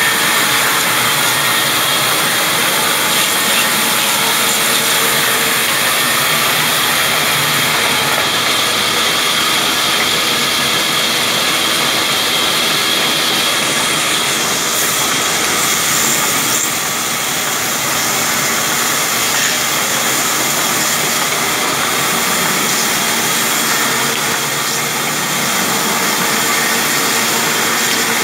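Large belt-driven band saw running steadily, its blade cutting lengthwise through a log with a constant loud hiss and drone.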